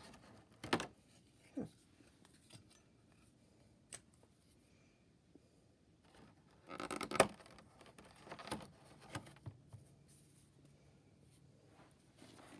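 Fingers picking at and scraping a cardboard advent-calendar door and drawing out a small paper piece: quiet scattered clicks and rustles, the loudest cluster about seven seconds in.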